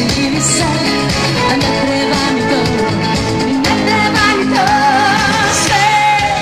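Loud amplified live band music with a singer. A wavering, held lead melody comes in about halfway through over a steady bass line.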